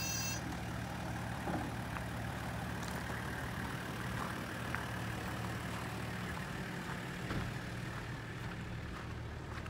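Toyota Coaster's 1HZ 4.2-litre inline-six diesel idling steadily, with a few faint clicks over it.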